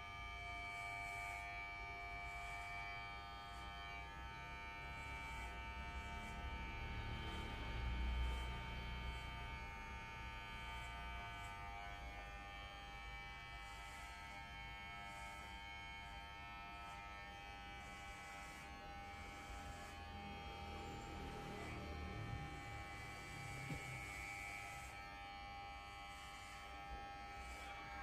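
Corded electric hair clipper running with a steady buzz as it trims close-cropped hair on a scalp.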